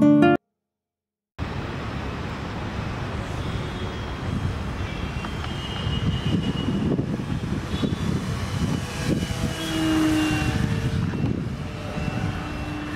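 Background music cuts off just after the start, and after about a second of silence the electric propeller motors of a homemade plastic-bottle RC airplane are heard in flight: a faint whine that comes and goes over a rough low rumble.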